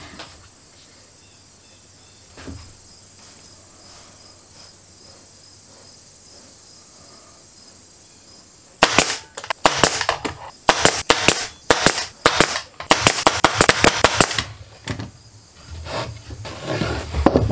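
Pneumatic brad nailer firing a rapid string of nails into birch plywood panels, several sharp shots a second for about six seconds, starting about nine seconds in. Before that there are only a few faint knocks.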